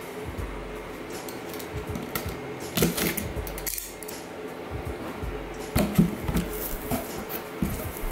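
Large cardboard shipping box being handled and opened: scattered knocks and scrapes of cardboard, with a short tearing rasp about three seconds in and louder knocks around six seconds in as the flaps come open.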